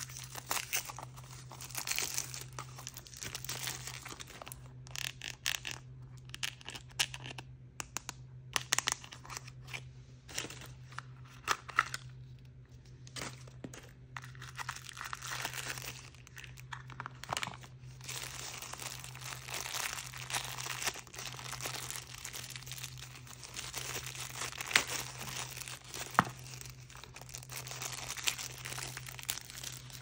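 Hands tearing open and crinkling toy blind-bag packaging, with many sharp crackles and rustles, over a faint steady low hum.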